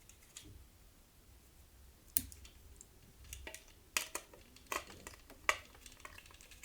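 Scattered sharp clicks and faint scraping from a Ganzo G2019S pocket multitool, its screwdriver being used to turn a screw. The clicks are irregular and cluster in the second half.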